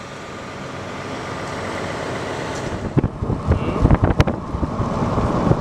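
Car driving, with a steady rush of road noise that grows louder. From about three seconds in, wind buffets the microphone in uneven gusts and thumps as it is held near an open window.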